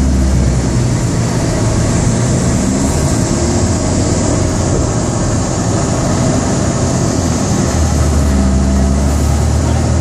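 Steady road and engine noise inside a moving car, a low drone with a hiss of road and wind over it; the low engine tone shifts near the start and again about eight seconds in.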